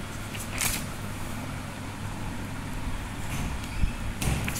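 Pages of a spiral-bound paper activity book being turned, with a couple of brief rustles and a soft knock near the end, over a steady low hum.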